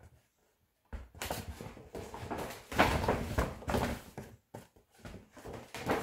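Stiff Chanel paper shopping bag being handled and moved, its paper rustling and crinkling in irregular bursts that start about a second in.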